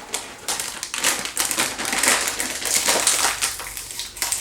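Plastic snack bag crinkling as it is handled and pulled open: a dense run of crackling rustles.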